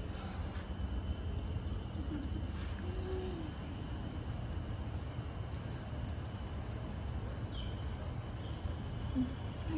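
Small bell and beads on a cat wand toy jingling in short bursts as it is shaken, mostly in the second half, over a steady low room hum.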